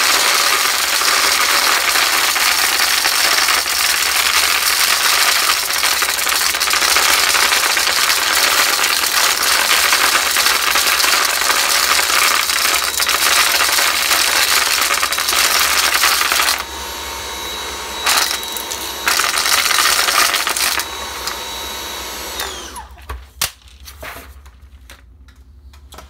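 Cordless stick vacuum running loud with a steady high whine, crunching and rattling as it sucks up hard beans, which its brush roll grinds up more than it picks them up. About 16 seconds in it drops quieter with two brief surges, then shuts off near the end, followed by a few clicks.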